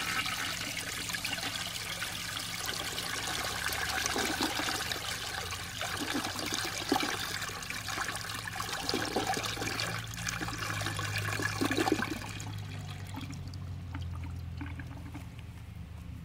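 American Standard Tulip 1.6-gallon toilet flushing, water swirling and rushing down the bowl. About twelve seconds in it settles to a quieter, steady trickle.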